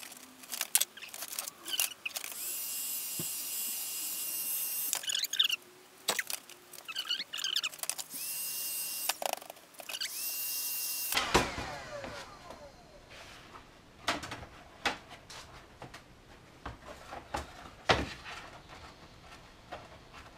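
Handheld heat gun blowing on a PVC foam board panel to soften it. It runs twice, about three seconds each time, as a steady hiss with a high fan whine. After the second run the whine falls away as the motor spins down. Light clicks and knocks of the panel being handled come between the runs and afterwards.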